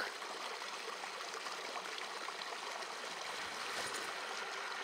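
Shallow creek water flowing and trickling steadily.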